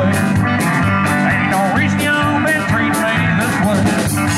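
Live country band playing: fiddle, electric guitar, bass guitar and drums with a steady cymbal beat.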